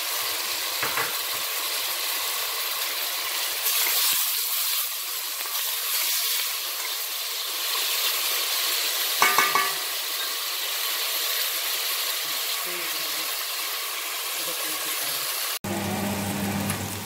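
Chopped tomato, onion and garlic sizzling in hot oil in a stainless steel pot as they are stirred. A brief ringing tone sounds about nine seconds in. The sound breaks off abruptly near the end, after which a low hum is heard.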